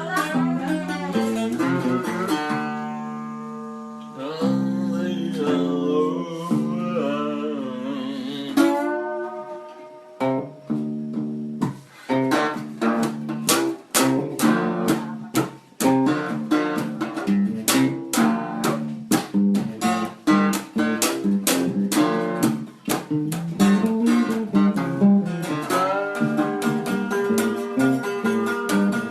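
Guitar music: held, ringing notes with some bending pitch in the first part, a short gap, then fast, rhythmic strummed chords from about twelve seconds in.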